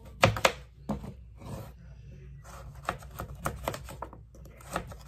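Kitchen knife cutting a raw carrot on a cutting board: two sharp cuts just after the start, then a run of quick, lighter clicks of the blade in the middle.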